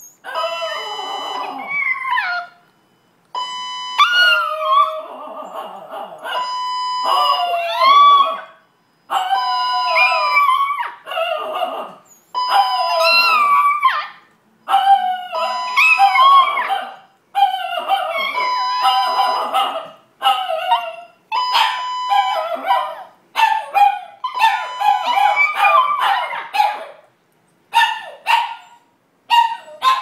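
Two Chihuahuas howling together in long wavering howls, broken up every couple of seconds, with some yips mixed in. Behind them a fire alarm sounds its steady electronic tone in repeated blasts, which is what sets the dogs off.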